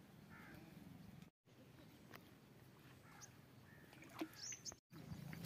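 Near silence: faint outdoor riverbank ambience with a few faint bird chirps. The sound drops out completely twice, briefly.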